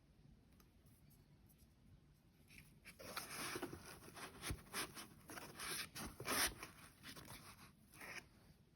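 Scratchy rubbing and scraping with a few sharp clicks, like objects being handled, starting about three seconds in and stopping about five seconds later.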